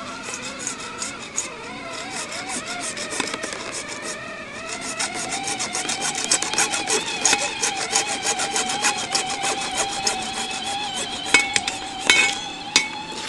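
Hacksaw cutting through half-inch PVC pipe, the blade rasping back and forth in strokes that get faster and louder about halfway through. A few sharp clicks near the end.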